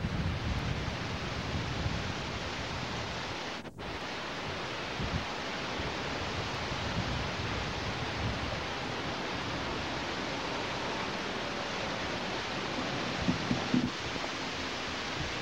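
Steady hiss with an uneven low rumble through the first half, which drops out for a moment about four seconds in; a few faint knocks near the end.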